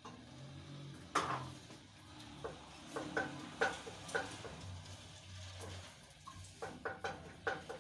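A wooden cooking stick stirring in a stainless-steel pot, knocking and scraping against the metal sides at irregular intervals, with a quicker run of knocks near the end.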